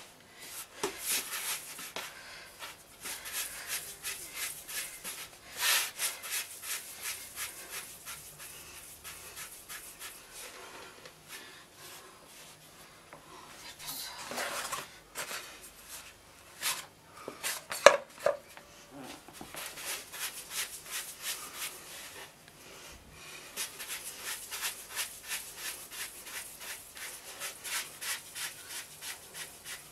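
Hands pressing and rubbing gözleme dough on a floured wooden board, in quick repeated rubbing strokes. A single sharp knock about two-thirds of the way through is the loudest sound.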